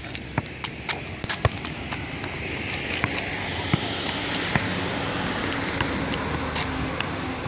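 A football being juggled: light, irregular thuds of the ball against foot, thigh and head, about two a second, with shoe scuffs on asphalt. A steady rushing noise swells up under the touches in the middle.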